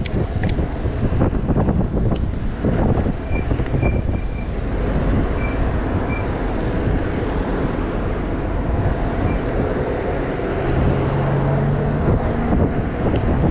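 Steady rumble of wind on the microphone and tyres rolling over a track, from an e-bike being ridden.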